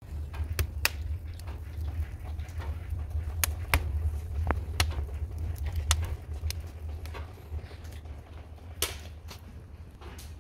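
Wood fire burning in a barbecue grill: sharp, irregular crackles and pops from the burning sticks over a steady low rumble, the rumble easing off after about eight seconds.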